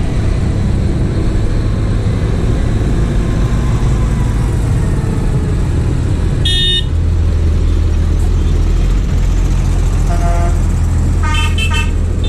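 Diesel tractor engines running steadily as a convoy approaches, with short horn toots: one about halfway through, a fainter one later, and a quick run of several toots near the end.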